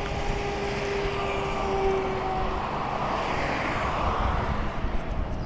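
A motor vehicle's engine running, then its noise swelling as it passes about three to four seconds in.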